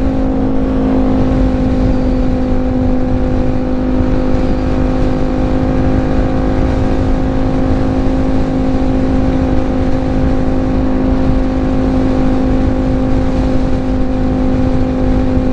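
BMW G310GS single-cylinder engine droning at a steady highway cruise, holding one pitch throughout, under heavy wind noise on a helmet microphone.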